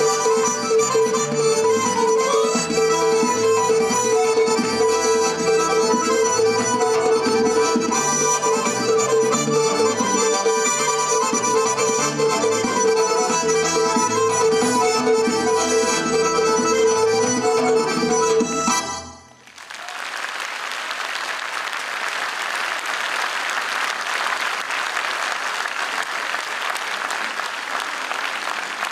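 Live Caucasian folk dance music led by an accordion over a held drone and a quick hand-drum beat, stopping abruptly about two-thirds of the way through. The audience then applauds steadily.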